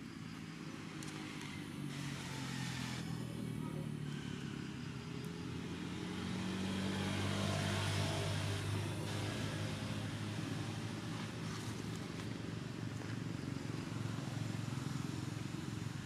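A motor vehicle's engine running steadily. It grows louder to a peak about eight seconds in, then eases off, as it passes by.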